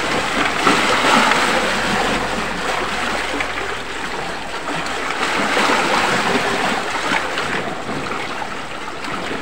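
Sea waves washing against a rocky shore, a steady wash of surf.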